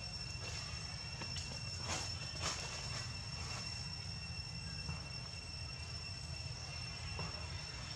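Steady, high-pitched drone of insects, with a low rumble underneath. Two brief clicks come about two seconds in.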